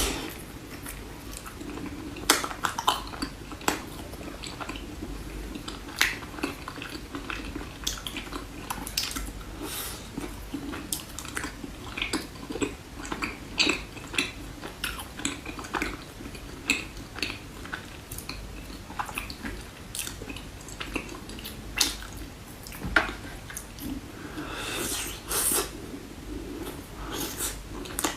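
Close-miked eating of chocolate desserts: chewing and biting with many irregular sharp clicks and taps, as of a spoon or fork on a dish.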